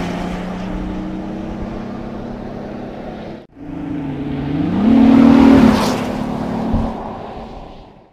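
Opel Omega 3.2 V6 (Y32SE) engine and Jetex rear exhaust box in two drive-bys. First the note fades steadily as the car pulls away, then, after a sudden cut, the car approaches with the engine note rising, passes loudest about two-thirds of the way in, and drops in pitch as it fades away.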